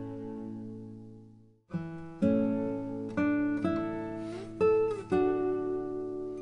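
Background music of acoustic guitar chords. One chord rings out and dies away, then new chords start about a second and a half in and follow every half second to a second.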